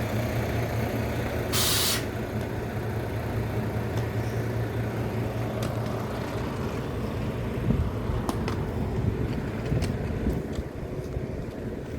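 A vehicle engine idling with a steady low hum. A short hiss of air cuts in about a second and a half in, like an air-brake release.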